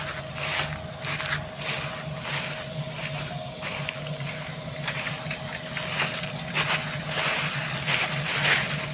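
Combine harvester running: a steady engine drone with a constant whine, overlaid with irregular rushing swishes every half second or so.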